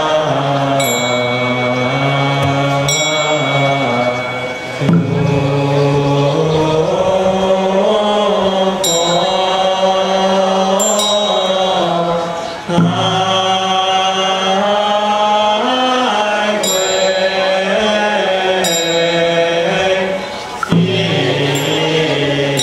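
Buddhist liturgical chanting sung into a microphone, held notes moving slowly in pitch. A small metal bell or chime is struck several times, usually two strikes about two seconds apart, each ringing on over the chant.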